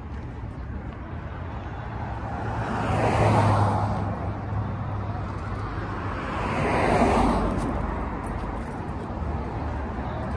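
Two vehicles driving past on the road one after the other, each swelling up and fading away over about two seconds, over a low steady engine hum.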